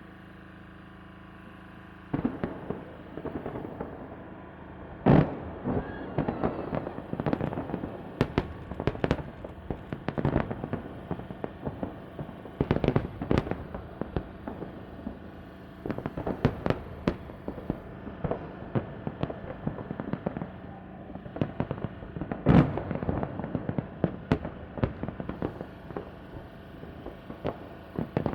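Fireworks salute: aerial shells bursting in quick succession with sharp bangs and crackling, starting about two seconds in, with two bangs standing out as the loudest.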